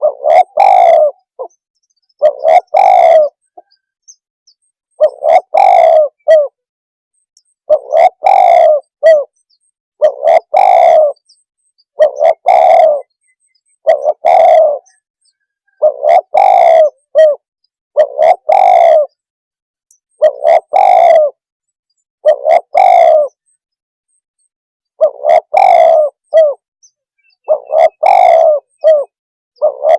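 Spotted dove (tekukur) cooing: a loud short phrase of coos repeated about every two seconds.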